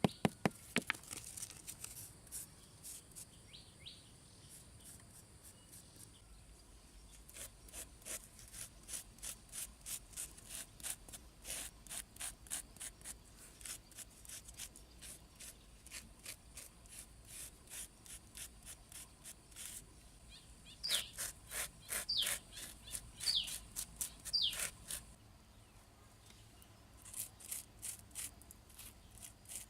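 Birds calling: long runs of short, evenly spaced chirps, about two or three a second, and four short falling whistles about three-quarters of the way through.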